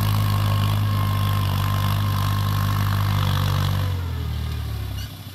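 Tractor diesel engine running steadily under load while ploughing a grassy field. Its sound drops off sharply about four seconds in and again near the end.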